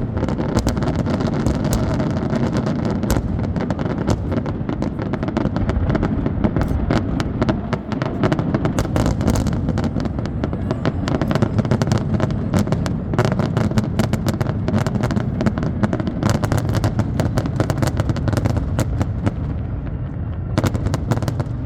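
Fireworks display: a dense, rapid run of bangs and crackles, many a second, over a continuous low rumble.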